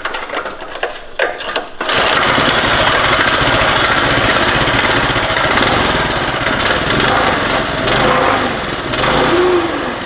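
Trailmaster MB200 minibike's 196cc single-cylinder engine, which starts about two seconds in after a few clicks and knocks. It then runs loud and fast, easing back to a lower, steadier running sound at the very end.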